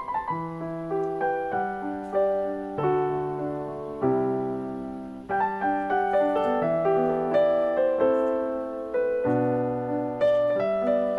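Background piano music: a slow, gentle piece of chords and melody notes, each struck and left to ring out.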